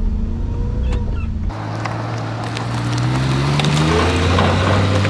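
Suzuki Carry mini truck's engine in four-low, first a steady drone inside the cab, then heard from outside with its note rising as the truck pulls forward on the trail, with scattered clicks.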